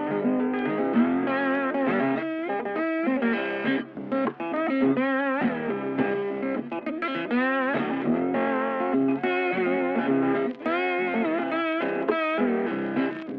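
Background music: an instrumental led by electric guitar, playing a melody with wavering, bent notes.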